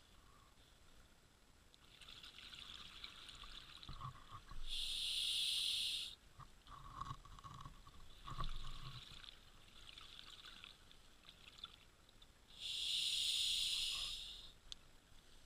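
Scuba diver breathing through a regulator underwater: two loud hisses about eight seconds apart, each lasting over a second, with quieter bubbling between them.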